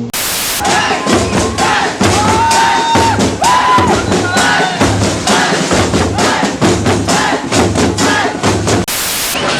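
Drumming with a crowd shouting over it, the cries rising and falling. A short burst of hissing static opens the sound and another comes about nine seconds in.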